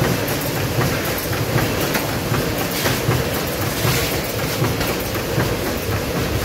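Automatic bhujia packing machine running, a steady rhythmic mechanical noise of its packet-forming and sealing cycle, with a pulsing low rumble and faint repeated clicks.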